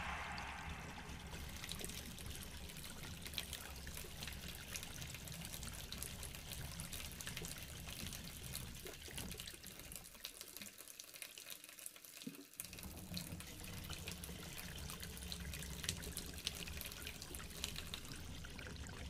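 Faint trickling water with a steady fine crackle. A low rumble under it drops away for about two seconds midway.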